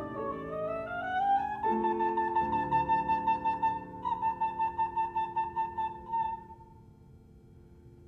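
Trumpet and grand piano playing: the trumpet climbs and then holds a high note that pulses about four times a second over sustained piano chords. Both stop about six and a half seconds in, leaving faint room tone.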